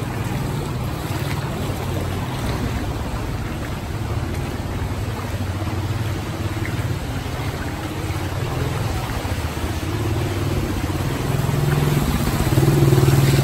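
Motorbike engine running, growing louder near the end as a motorbike rides through shallow floodwater close by, over a wash of sloshing water.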